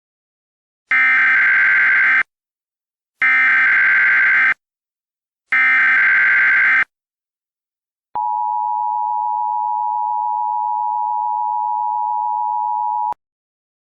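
Emergency Alert System alert tones: three short bursts of SAME header data tones, each about a second long with a second's gap between them, then the two-tone EAS attention signal held steady for about five seconds.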